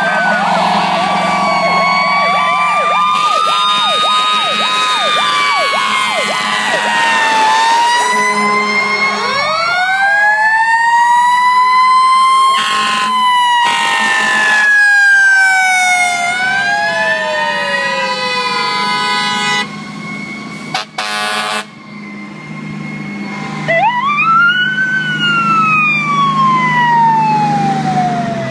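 Sirens on several fire trucks driving past, sounding together: a fast yelp in the first few seconds, then overlapping wails rising and falling, and one last wail rising and falling near the end. Loud horn blasts cut in about halfway through and again a few seconds later, over a low diesel engine drone.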